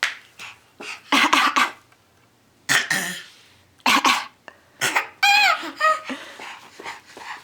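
Fake coughing: a series of short, sharp coughs in small clusters. About five seconds in, a young child's high-pitched squeal or laugh breaks in, its pitch wavering and falling.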